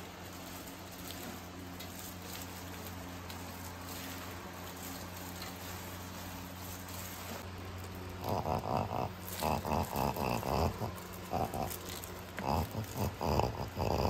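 A pug's quick, noisy nasal breathing close by: a run of short breaths starting about eight seconds in, over a low steady hum.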